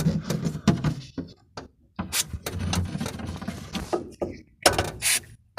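Knocks and clicks from a VAZ classic's trunk lid and its torsion-bar hinges being worked after a coat of silicone spray. Short hissing bursts come near the end.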